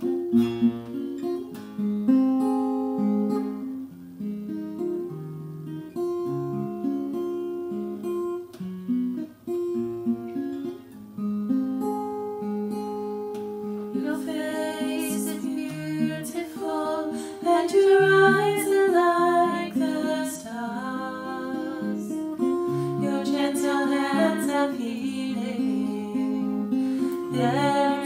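Acoustic guitar playing a slow worship-song accompaniment. About halfway through, a woman's solo voice comes in singing over it.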